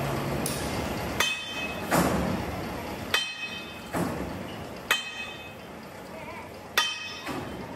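Metal striking metal: about six sharp clanks at irregular intervals of roughly a second, several ringing briefly. A low engine hum cuts off just after the start.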